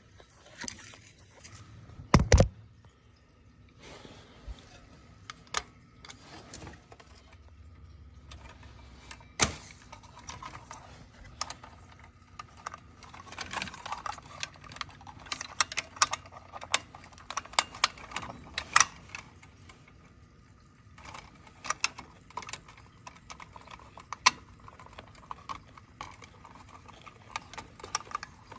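Scattered clicks, clinks and light knocks of hand tools and small metal parts being handled during wiring work on boiler controls, with two sharp knocks about two seconds in and a busier run of small clicks in the middle.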